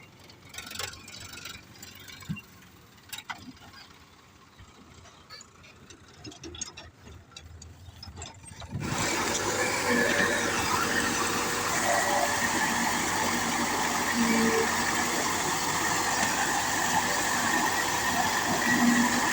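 Scattered faint clicks and knocks, then about nine seconds in a loud, steady machine sound starts abruptly, with a squealing tone over it: a backhoe loader's engine and hydraulics running.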